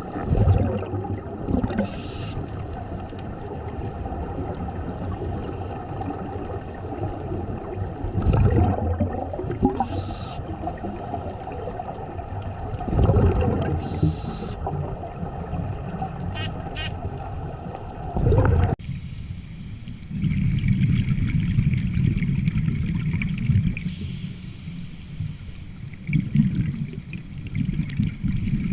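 Underwater recording from a dive: a dense, rumbling wash of water with gurgling and bubbling, broken by short hissing bursts a few times. About two-thirds of the way through it cuts suddenly to a quieter, lower rumble.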